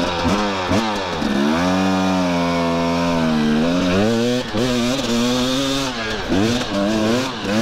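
KTM 250 XC-W two-stroke dirt bike engine revving under load on a hill climb, the revs rising and falling over and over, held high and steady for about two seconds in the middle before dropping.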